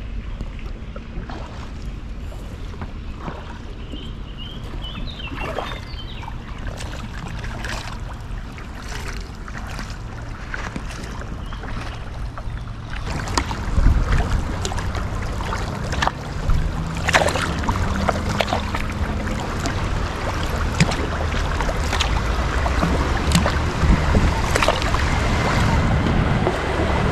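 Kayak paddling on a river: paddle strokes splashing irregularly over steady water noise, with wind rumbling on the microphone. It gets louder about halfway through.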